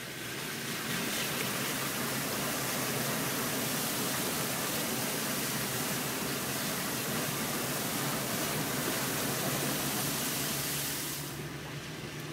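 Car tyres hissing on a wet road, heard from inside the moving car over a steady low engine hum. The hiss cuts off about eleven seconds in.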